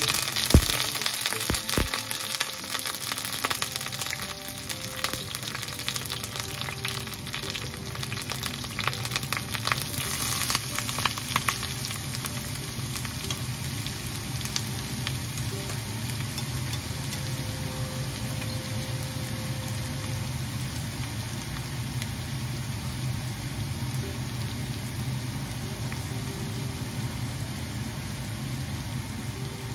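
Coconut oil sizzling in a pan with curry leaves and ginger, then chopped onions frying as a spatula stirs them. Sharp crackles and clicks through roughly the first dozen seconds settle into a steady sizzle.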